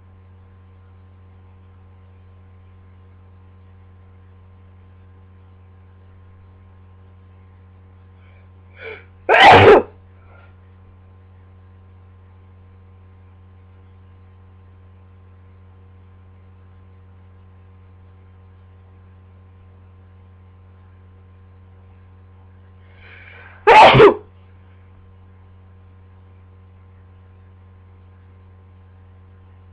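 A person sneezing twice, about fourteen seconds apart, each sneeze led by a short gasping intake, from a heavy, congested head cold. A steady low electrical hum runs underneath.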